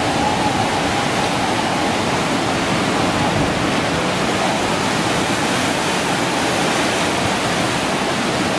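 Steady rushing noise of a storm-driven sea, surf and strong wind, under a cyclone's high tide.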